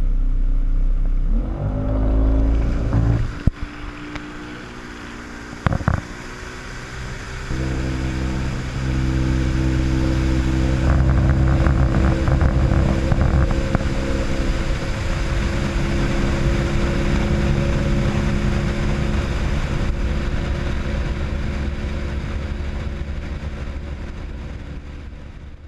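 Motorboat engine running under way, with water rushing along the hull. The engine speeds up about two seconds in, then holds a steady drone. Two sharp knocks come in the first few seconds, and the sound fades out at the end.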